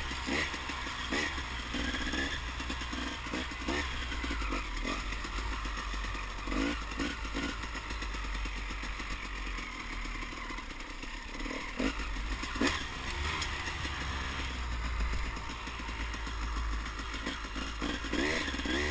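Off-road vehicle engine revving up and down over rough trail, with stones and debris clattering under the wheels and a few sharp knocks about two-thirds of the way through.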